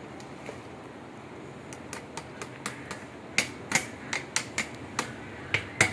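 Irregular sharp clicks and taps, a few each second, from a plastic bowl and utensils knocking on an aluminium cooking pot as boiled rice is tipped in. The taps grow louder from about three and a half seconds in.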